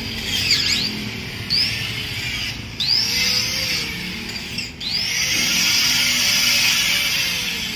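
Electric angle grinder spun up twice on a stainless steel grill frame: a short run about three seconds in, then a longer one about five seconds in, each start a rising whine that settles into a steady high-pitched grinding hiss.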